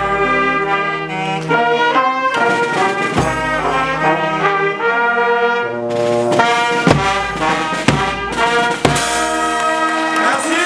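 Brass music: horns playing sustained chords, the notes changing every second or so.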